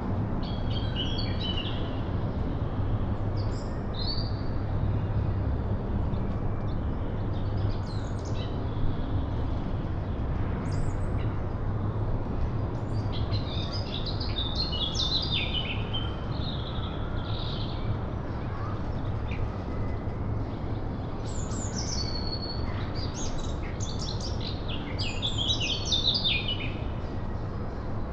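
Several small songbirds singing in short chirping, twittering phrases, busier in the second half, over a steady low rumble.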